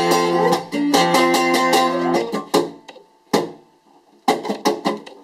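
Guitar strummed in held chords for about two seconds, then five or six separate strums with gaps between them, each ringing out: the close of a short comic song.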